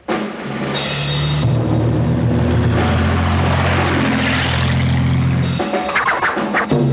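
Cartoon soundtrack: a steady, engine-like rumbling noise over low held notes, breaking off near the end into a quick run of sharp rattling clicks.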